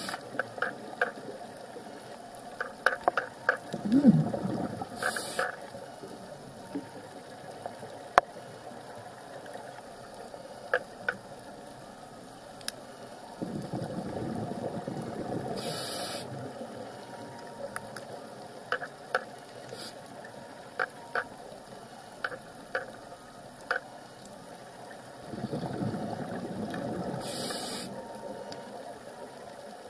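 Scuba diver breathing through a regulator underwater: a short hiss of inhalation three times about eleven seconds apart, and rushing exhaust bubbles in between. Scattered sharp clicks and crackles throughout.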